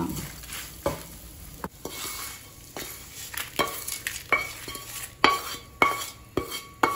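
Wooden spatula stirring roasted red chillies, garlic and curry leaves in a stainless steel pan with a light sizzle at first, then scraping them out onto a steel plate. The pan and spatula knock against the steel about nine times, each knock leaving a short metallic ring.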